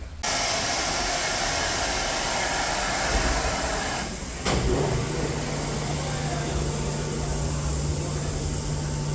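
Steady rushing air noise from a blower- or vacuum-type electric motor. It starts suddenly, dips briefly about four seconds in, then comes back with a low steady hum added.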